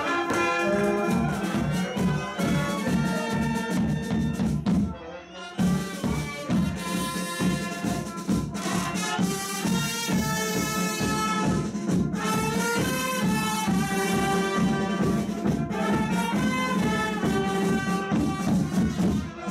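A brass band plays a lively tune, with trumpets over a steady drum beat. It breaks off briefly about five seconds in and then plays on.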